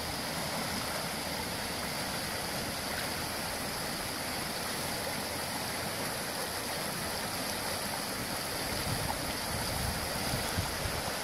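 River water rushing steadily over a salmon river's stones, with a few soft low bumps near the end.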